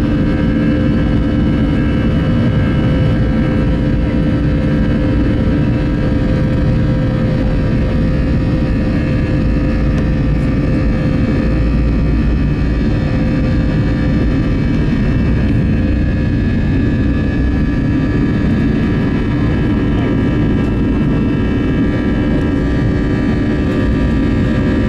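Airbus A320 jet engines at take-off thrust, heard from inside the cabin: a loud, steady roar with several steady tones riding on a deep rumble as the airliner accelerates down the runway and climbs away.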